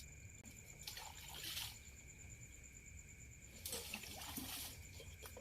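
Shallow water splashing twice, about a second in and again near four seconds, over a steady high-pitched trilling of night insects.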